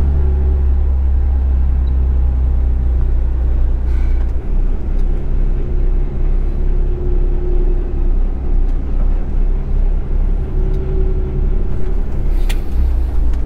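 Truck engine running while the lorry moves slowly, heard from inside the cab as a steady low rumble. A brief sharp click sounds near the end.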